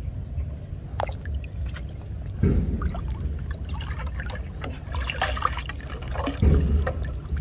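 Muddy pond water sloshing and trickling around a person wading and working a plastic bottle trap, with water pouring and dribbling. There are two heavier surges of moving water, about two and a half seconds in and again about six and a half seconds in.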